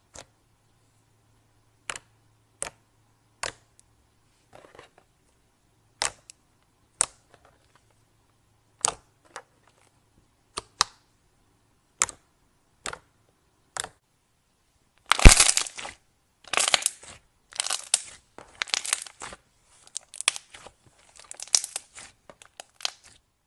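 Slime being worked by hand: sharp single pops and clicks about once a second, then from about fifteen seconds in a dense run of crackling and crunching.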